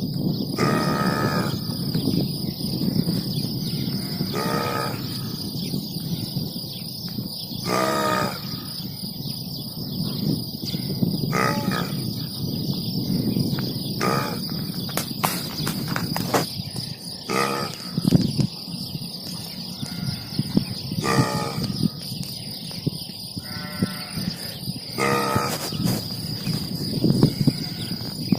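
A man burping loudly over and over: about eight drawn-out, wavering burps, each under a second long, a few seconds apart.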